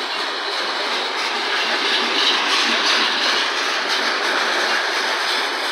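Covered hopper cars of a freight train rolling past close by: a steady noise of steel wheels on rail.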